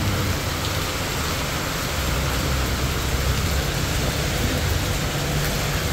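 Heavy rain pouring down onto a paved road, a steady even hiss, with a low rumble of vehicle engines underneath.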